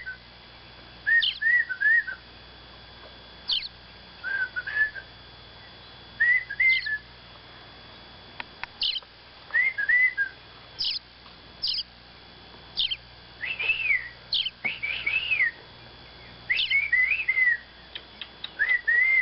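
Small birds chirping in clusters every second or two, mixing quick high downward chirps with short arched whistled notes.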